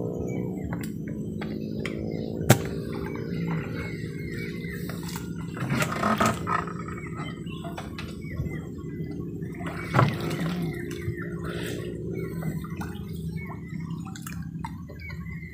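Gill net being hauled by hand out of the river, water dripping and splashing off the mesh, with a few sharp knocks, over birds chirping in the trees and a steady low hum.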